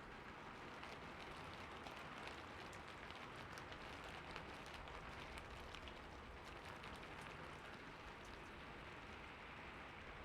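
Steady rain falling on a surface, an even hiss dotted with the ticks of individual drops.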